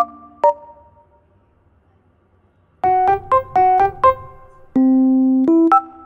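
Playful background music on keyboard: a couple of short notes, a pause of about two seconds, then a quick run of bouncy notes and a held low chord.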